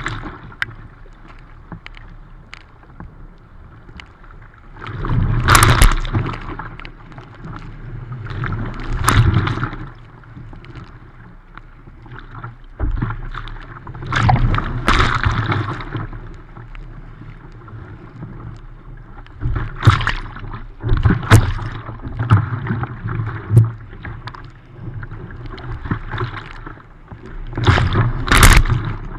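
Breaking surf and whitewater washing over a surfski's bow, splashing right at the camera, in loud rushing surges every few seconds over a steady wash of water.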